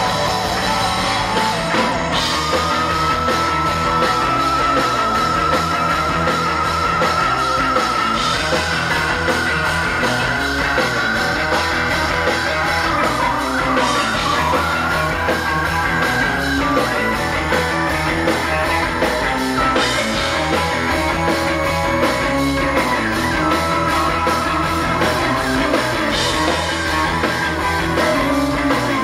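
Live rock band playing an instrumental jam with electric guitar, bass guitar and drums. A lead line holds long high notes, each lasting a few seconds, stepping up in pitch over the steady groove.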